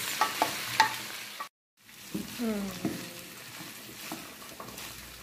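Raw rice sizzling as it fries in a hot frying pan with a sautéed vegetable base, stirred and scraped with a wooden spoon, with a few sharp knocks in the first second. The sound cuts out completely for a moment about a second and a half in.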